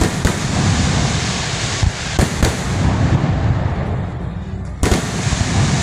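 Aerial fireworks display: shells bursting with several sharp bangs, the loudest a little before the end, over a steady rumble of further bursts and launches.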